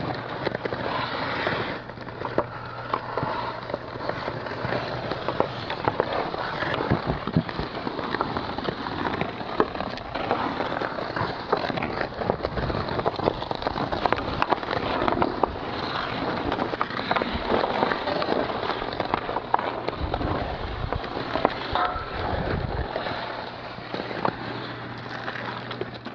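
Ice skates scraping and gliding on an outdoor rink, with frequent sharp clacks of hockey sticks hitting the puck and the ice.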